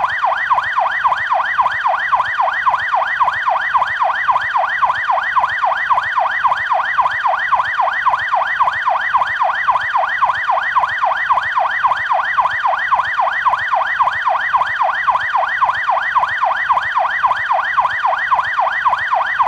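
Canadian police siren on its yelp tone: quick rising sweeps of pitch, about three a second, repeating steadily without a break.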